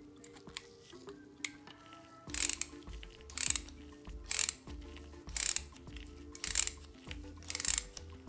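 Restored antique ratchet screwdriver's pawl clicking in six short rapid bursts, about one a second, as the handle is turned back and forth. A few faint clicks come first.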